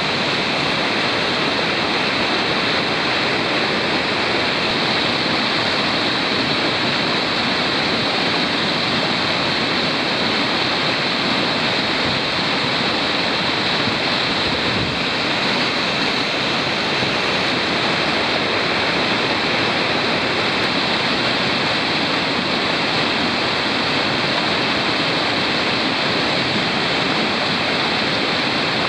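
Whitewater rapids rushing: a steady, unbroken noise of churning river water.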